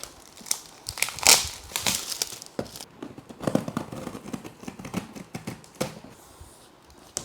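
Gift packaging being torn open and crumpled as a present is unwrapped, in irregular rustling, tearing bursts, the loudest about a second in.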